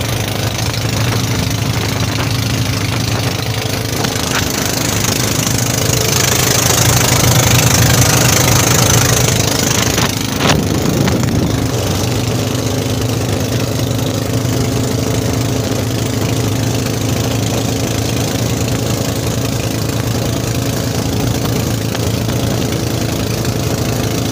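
A motorised outrigger fishing boat's engine runs steadily under way. A hissing rush of wind and water swells from about four seconds in and fades around ten seconds, where there is one sharp knock.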